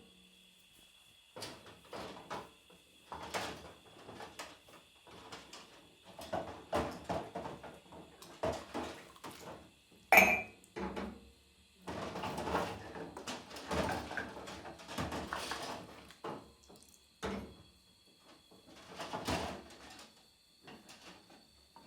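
Dishes and cutlery being washed by hand in a kitchen sink: plates, glasses and utensils knocking and clattering at an irregular pace. About halfway through there is one loud, sharp clink that rings briefly.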